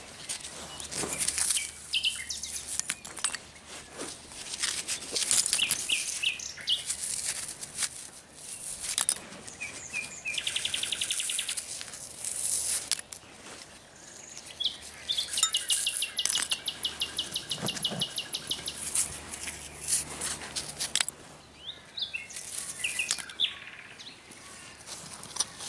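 A nightingale singing short chirping phrases, with two spells of fast rattling trills of repeated notes, about ten and fifteen seconds in. Over it come clinks, knocks and scrapes of dug-up corroded metal scrap and soil being handled.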